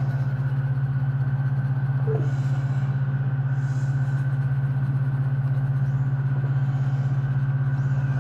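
A steady low hum with a fast, even flutter, unchanging throughout. Faint soft scratches of coloured pencils on paper come and go over it.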